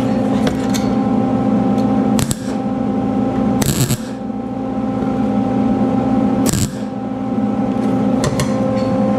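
MIG welder laying short tack welds on a sheet-steel seat pan: three brief arc crackles about two, three and a half and six and a half seconds in. A steady machine hum runs underneath.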